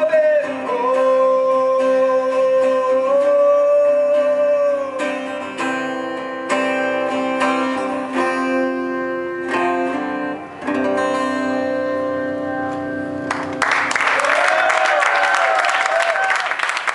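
Live solo acoustic guitar and voice: a long held sung note over the guitar, then a run of strummed chords, each ringing and stopping. About three seconds before the end the music gives way to audience applause and cheering.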